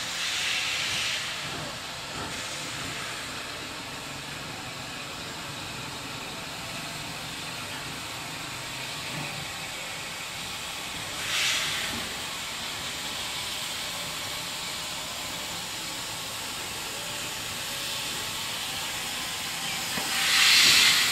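HGS class 2-8-0 steam locomotive hissing steam steadily as it drifts slowly in, with three louder bursts of hiss: at the start, about eleven seconds in, and near the end.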